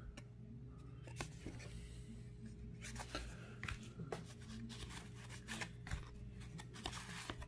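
1987 Fleer baseball cards being flipped and slid past one another in the hands: faint, scattered soft clicks and rustles of cardboard, over a low steady hum.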